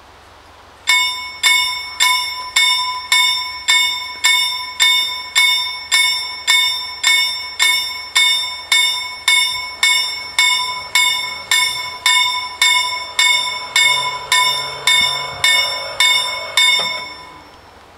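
Level crossing warning bells striking at a steady pace of about two strikes a second, each strike ringing out with a bright metallic tone. They start about a second in and stop shortly before the end, once the barriers are down.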